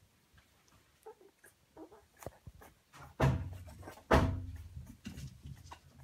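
Two-week-old puppies squeaking and whimpering faintly as they squirm, with two loud bumps about three and four seconds in.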